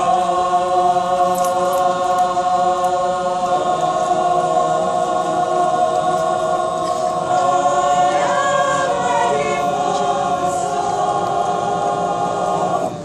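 Mixed choir singing without accompaniment, holding one long chord on the word 'storm' as the harmony shifts a couple of times. The voices cut off together near the end.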